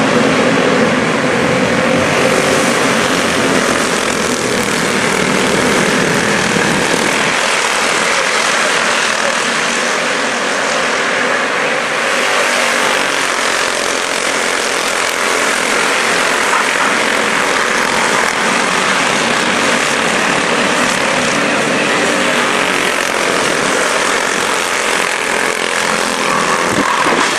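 A pack of quarter midget race cars running together on a small oval, their small single-cylinder engines buzzing loud and steady as they circle.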